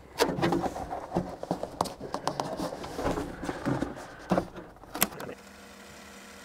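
Hand work on sheet sound insulation in a vehicle tailgate: irregular knocks, taps and rustles as pieces are handled and pressed into place. About five seconds in the clatter stops and a steady low hum with a faint tone is left.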